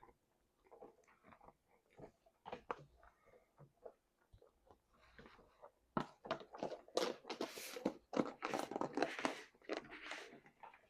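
Messy open-mouthed chewing close to the microphone, wet smacking clicks. Sparse at first, then much louder and denser from about six seconds in.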